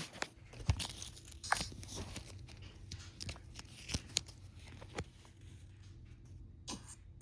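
Packaging being handled: crinkling and tearing with scattered clicks and knocks at an irregular pace.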